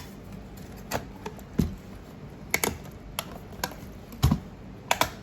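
Irregular sharp clicks and light knocks of a fusion splicer's outer cover parts being handled and pressed into place, with two heavier knocks among them.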